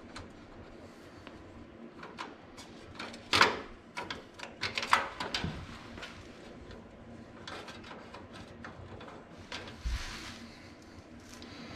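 Hand screwdriver driving stainless steel screws into a 1966 Chevelle's chrome headlight trim bezel: a series of small metal clicks and scrapes. The loudest is a sharp clack about three seconds in, and a dull thump comes near the end.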